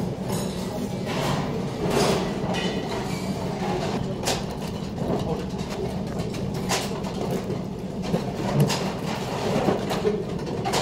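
Cafeteria room noise: a steady low hum with a few sharp clinks of metal chopsticks and spoon against dishes.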